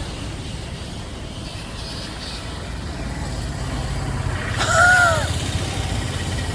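Low rumble of road traffic, with a heavy vehicle building up from about halfway through. A single short pitched cry rises and falls just before the five-second mark.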